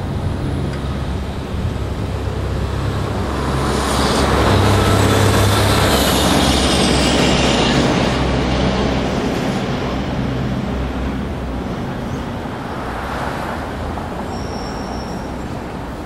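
Road traffic: a vehicle passes, swelling to its loudest about four to eight seconds in and then fading, over a steady low traffic rumble.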